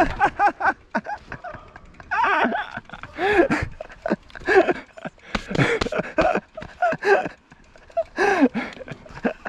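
Short wordless voice sounds, grunts and exclamations from a mountain biker riding, repeated every half second to second, mixed with knocks and rattles from the bike going over rough, rooty ground.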